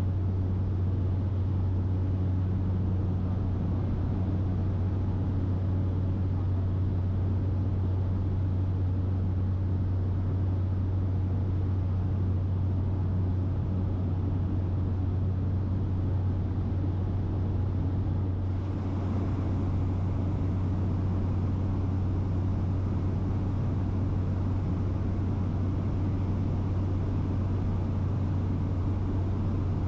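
Steady drone of a small propeller plane in flight, heard from inside the cabin: a deep constant hum under a wash of hiss. About eighteen seconds in, the hiss turns slightly brighter and stays that way.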